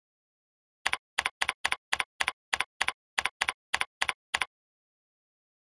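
Computer keyboard being typed on: about thirteen quick keystrokes, each a sharp double click, over about three and a half seconds, starting about a second in.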